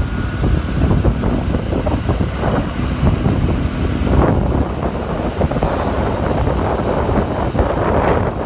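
Roadside traffic rumble with heavy wind buffeting on the microphone; no telolet horn is sounding.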